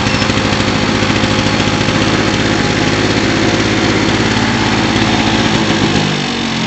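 Victa Mustang lawn mower's 160cc two-stroke engine running steadily, freshly started first time with one pull of the cord. Near the end its low note changes and it gets slightly quieter.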